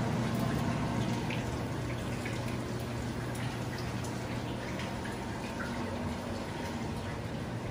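Steady low hum under an even hiss: indoor background noise, with a few faint ticks.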